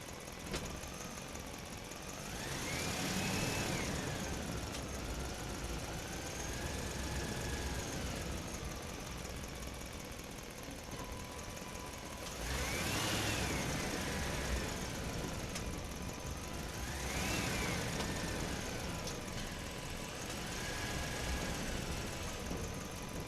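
Truck engine running and being revved, three strong revs and a lighter one, each rising in pitch and sinking back to idle.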